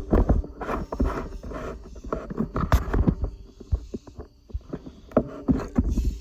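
Irregular knocks, clunks and scrapes of hands and tools working on the machine, with low rumbling thumps; it cuts off abruptly at the end.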